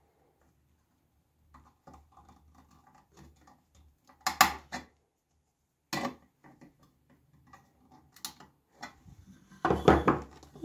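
Pliers working a pin into the hinge of a brass dish: scattered small metal clicks with a sharp clink about four seconds in and another around six. Near the end comes a louder cluster of metal clanks as the brass dish is handled on the table.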